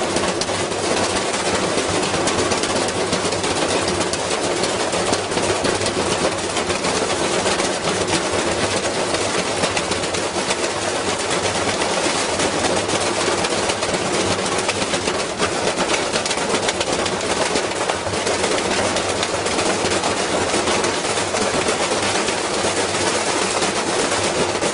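Washing machine spinning with a heavy piece of iron inside its drum, the iron banging and rattling against the drum in a fast, continuous clatter.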